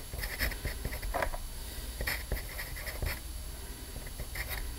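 Pencil scratching on paper as words are handwritten, in short, irregular strokes.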